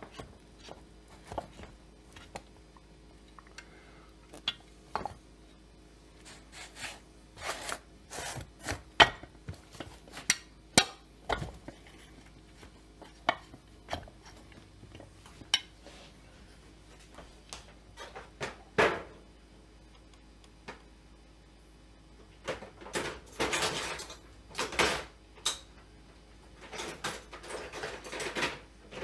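Metal parts and hand tools being handled during chainsaw crankcase assembly: irregular clicks, taps and clinks, with longer stretches of scraping and rustling about 23 seconds in and again near the end.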